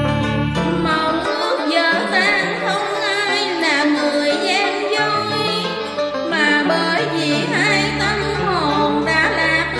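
Instrumental interlude of a Vietnamese tân cổ karaoke backing track: a traditional-style melody with wavering, bending notes over a steady bass line.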